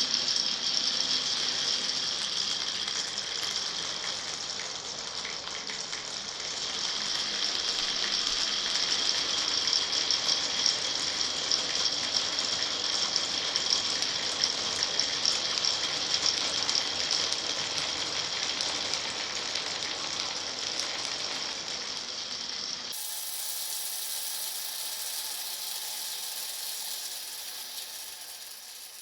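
Marbles rolling and clattering along wooden and plastic marble-run tracks, a dense continuous rattle of many small clicks. About three-quarters of the way through the sound cuts abruptly to a thinner, steadier rolling noise that fades out at the end.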